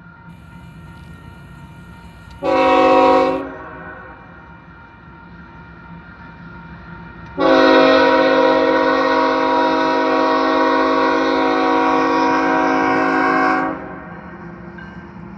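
Locomotive air horn, several tones sounding together as a chord: a short blast of about a second, then a long blast of about six seconds, over the low rumble of the approaching train. The short-then-long ending fits the close of the standard grade-crossing signal (long, long, short, long).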